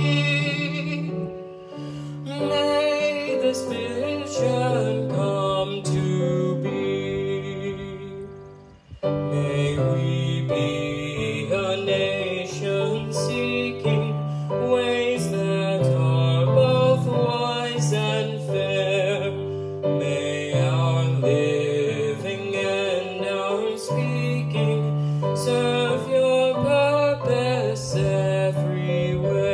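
Yamaha electronic keyboard on a piano voice playing an instrumental passage of a hymn, sustained chords and a melody line. The music fades to a brief pause about eight seconds in, then starts again.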